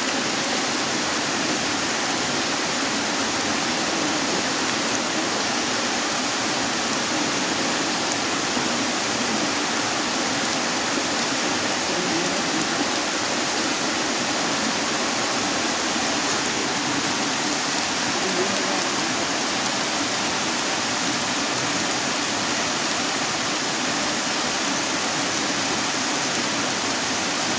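Rain falling: a steady, even hiss with no breaks.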